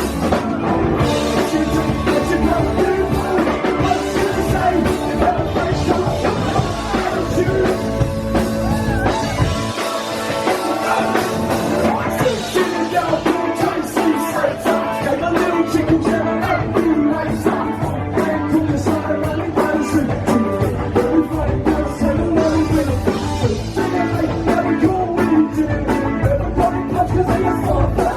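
Punk rock band playing live: drum kit, electric guitars and bass going at a fast, loud pace, with a singer's vocals over them.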